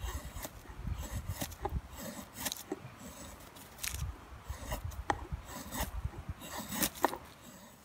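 Marbles 700DB double-bit hatchet blade shaving curls off a dry stick to make a feather stick: a run of short rasping strokes of steel slicing along wood, about one a second and unevenly spaced, with a few sharper clicks.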